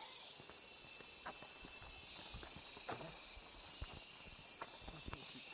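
Footsteps on a paved path: a scattered handful of soft, irregular steps over a steady high-pitched hiss.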